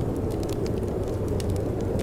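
Wood fire crackling in a fireplace, with scattered sharp pops and snaps, over a steady low rush of wind.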